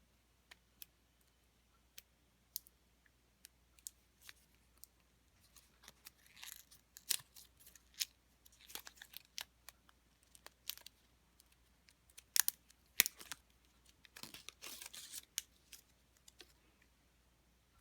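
Watch packaging handled by hand. There are scattered light clicks and taps, and three short spells of rustling, about six, eight and a half and fourteen seconds in.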